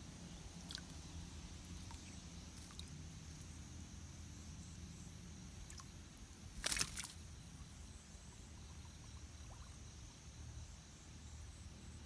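Faint outdoor ambience: a low steady rumble and a thin steady high hiss, with a few light clicks and one short, sharp crackling rustle about seven seconds in.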